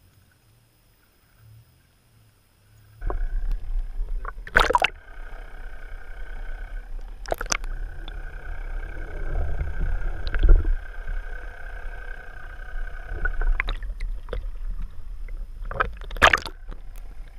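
Near silence at first. About three seconds in, a boat's motor starts to be heard, running steadily with a low rumble and a whine. Several sharp knocks break through it.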